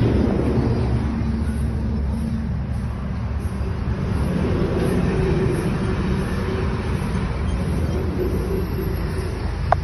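A motor vehicle's engine running steadily, with a rushing noise over it.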